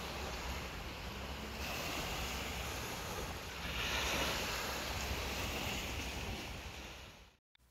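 Small waves washing onto a sandy beach, with wind rumbling on the microphone; the sound swells a little midway and stops abruptly near the end.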